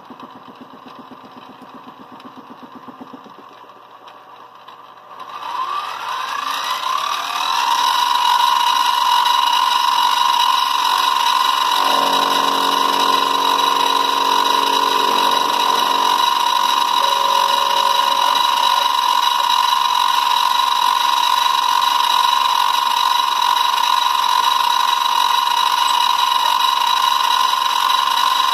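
Benchtop milling machine's spindle motor spinning up about five seconds in, a rising whine that settles into a steady high whine as the end mill works on a model locomotive's split metal frame.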